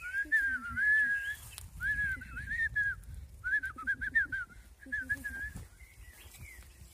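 A person whistling in four short warbling phrases, each about a second long, mimicking birdsong as if calling to the birds.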